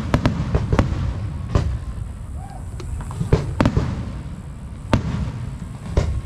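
Aerial firework shells bursting overhead in a series of sharp bangs, about seven over six seconds and unevenly spaced, each followed by a low rumbling echo.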